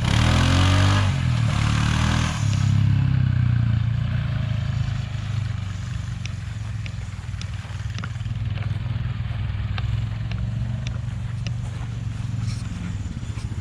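Honda Pioneer 500 side-by-side's single-cylinder engine idling steadily, louder for the first couple of seconds, with a few faint light ticks later on.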